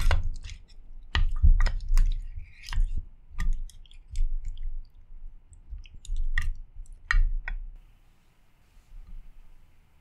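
Wooden chopsticks and a wooden spoon tossing sauce-coated octopus and quail eggs in a glass dish. Irregular clicks and taps with wet squishing, which stop about three-quarters of the way through.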